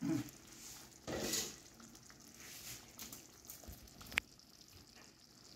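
Thick vegetable gravy for undhiyu simmering in a pan on a gas burner, with a faint sizzle. There is a short burst of noise about a second in and a single sharp click with a brief ring about four seconds in.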